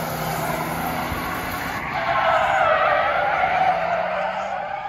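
Tires squealing as an old station wagon slides sideways in a drift, its engine running underneath. The squeal wavers and grows louder about halfway through, then eases off near the end.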